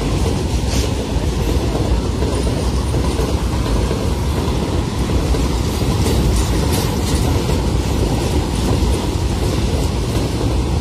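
Covered freight wagons of a goods train rolling past at speed, a steady heavy rumble with wheel clatter over the rail joints.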